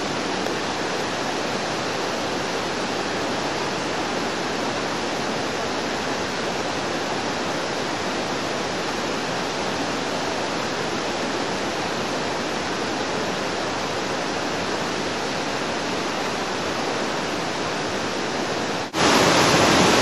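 Waterfall and mountain stream cascading over rock steps, a steady even rush of water. Near the end it jumps suddenly louder, up close to the water tumbling over layered rock.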